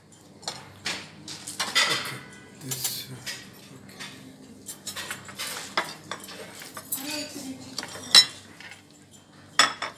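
Metal cutlery and china plates clinking and clattering as dishes are handled and food is served at a table, in scattered sharp clinks. The loudest clink comes about eight seconds in.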